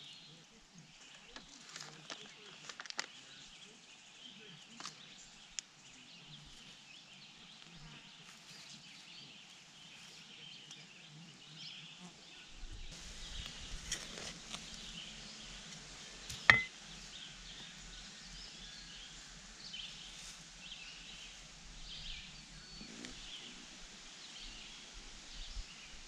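Quiet garden ambience with small scrapes and taps of a hand trowel digging into soil, and one sharp knock about sixteen seconds in.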